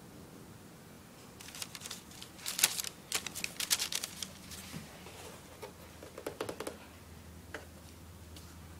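Tissue paper crinkling and rustling in a cardboard shoebox as quick crackles. There is a louder spell from about one and a half to four and a half seconds in, and a shorter, softer one around six seconds in.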